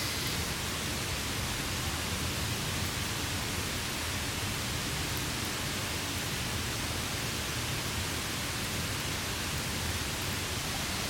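Rain falling steadily on a tarp, an even hiss with no break.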